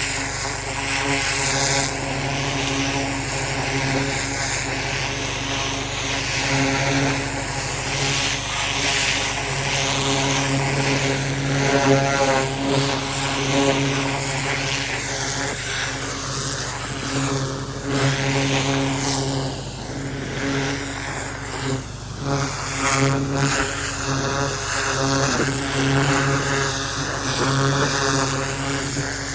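Pressure washer running steadily: a small engine's drone under the hiss of the water jet.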